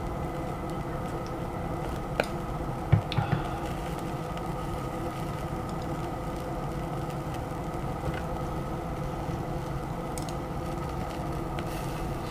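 A steady machine whir with a constant hum, and a few sharp clicks and a knock between about two and three and a half seconds in.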